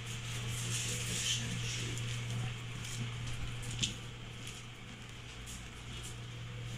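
Whippet puppies' paws and claws pattering and clicking on a tile floor as they scamper, with a few sharper clicks, one near the middle, over a steady low hum.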